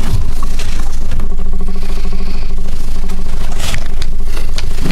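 Steady low electrical hum with a faint buzzing overtone, picked up by the meeting room's microphones, with a few faint clicks.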